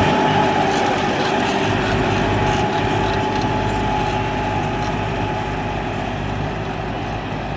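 Diesel tractor engine running steadily, gradually growing quieter.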